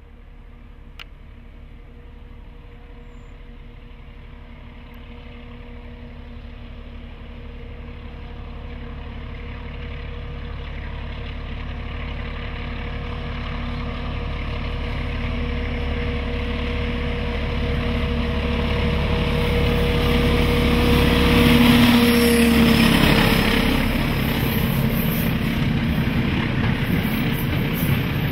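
Class 14 D9526 diesel-hydraulic locomotive, with its Paxman Ventura V6 diesel engine, working hard under load up a gradient. The engine note grows steadily louder as the locomotive approaches, peaks and drops slightly in pitch as it passes about three-quarters of the way in. The noise of loaded ballast wagons rolling past follows.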